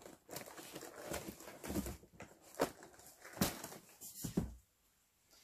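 Hands handling a cardboard advent calendar and paper: rustling, with about four dull knocks roughly a second apart.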